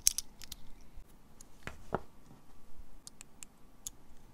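Light clicks and taps of small plastic parts being handled as a micro RC crawler's transmission cover is fitted back on. There is a cluster of clicks at the start, two louder knocks about two seconds in, and a few faint ticks near the end.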